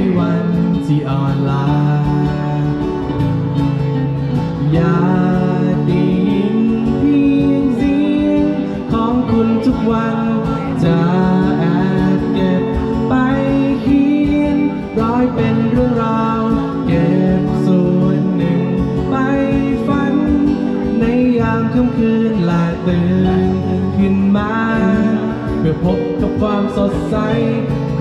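Live folk band playing a song.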